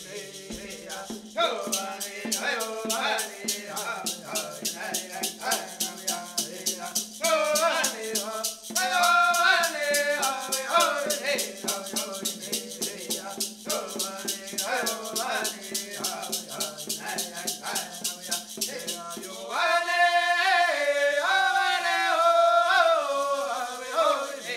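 Voices singing a Women's Dance song over a hand rattle shaken in a steady, fast beat. The singing grows louder about twenty seconds in.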